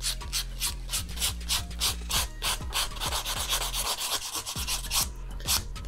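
A sponge nail buffer block rubbed briskly back and forth over a dip-powder nail tip, in quick even strokes at about five a second. The buffing can be heard because the dip coat has fully hardened after the activator.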